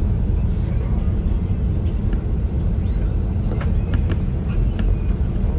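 Airbus A330-300 landing rollout heard from inside the cabin: a loud, steady deep rumble of the wheels on the runway, the rushing air and the Pratt & Whitney PW4170 engines. A few light clicks sound between about two and four seconds in.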